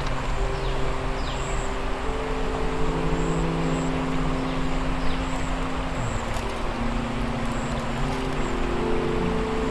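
Creek water running steadily over rocks, under a low drone of held notes that shift in pitch every second or two.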